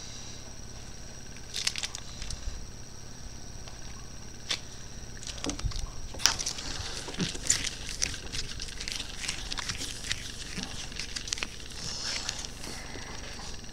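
Scratching, tapping and scuffing on a hard desk surface close to the microphone: a few scattered clicks at first, then denser scuffling from about halfway. A faint steady high whine runs underneath.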